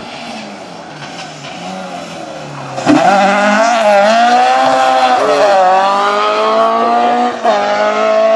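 Rally car engine at high revs, heard faintly at first as it approaches, then suddenly loud about three seconds in as it passes close and pulls away. The revs dip briefly and climb again several times.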